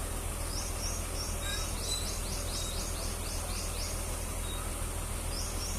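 A small bird calling in rapid runs of short high chirps, about five a second, one run early and another starting near the end, over a steady low hum.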